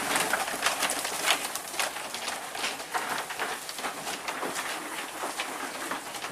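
Birds calling, over a busy patter of short clicks and rustles.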